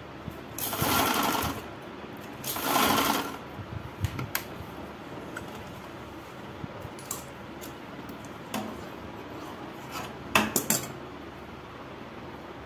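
Gulab sewing machine stitching in two short runs of about a second each, then stopping. Scattered light clicks follow, with a quick cluster of sharp clicks about ten seconds in.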